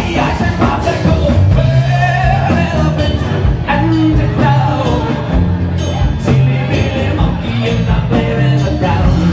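Live band playing music, with regular drum hits over a moving bass line.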